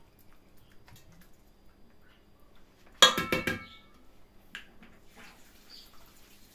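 Kitchen utensils clinking against cookware: a quick cluster of ringing clinks about three seconds in, then a single lighter tap.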